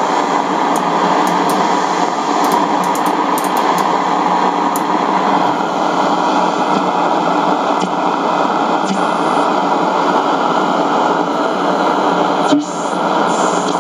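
Steady hiss and buzzing electrical noise from a Radio Shack 12-795 multiband receiver's speaker, tuned in the AM broadcast band near 600 kHz. Near the end the noise briefly dips with a click as the tuning knob is turned.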